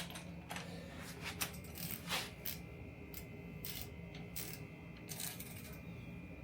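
Socket wrench turning a bolt on a kids' bike: irregular metal clicks and light scrapes, a stroke or two a second, as a child works the wrench.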